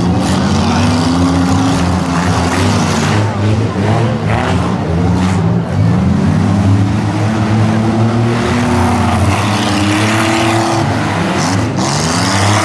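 Compact four- and six-cylinder car engines revving hard, again and again, their pitch sweeping up and down as the derby cars accelerate and back into one another.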